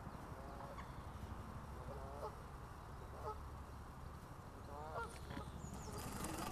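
Geese honking a few times, short calls a second or so apart, the loudest about five seconds in, over a steady low rumble.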